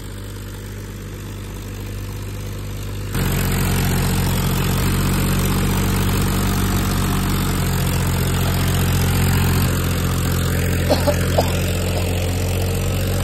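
Powertrac Euro 41 tractor's diesel engine running hard as it tries to pull a loaded trolley out of mud in which it is stuck. It gets suddenly louder about three seconds in and shifts in pitch about halfway, with a few short clicks near the end.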